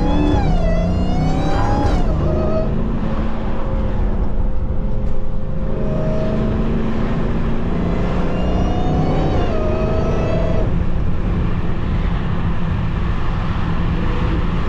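Dodge Charger Hellcat's supercharged 6.2-litre V8 pulling hard twice: the engine and supercharger whine rise in pitch and cut off at each shift, first in the opening two seconds and again about eight to ten seconds in. In between and afterwards it runs on at a steady cruising drone.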